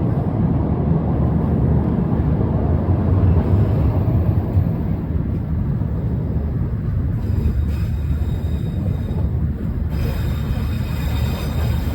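Train running on the rails, a steady low rumble.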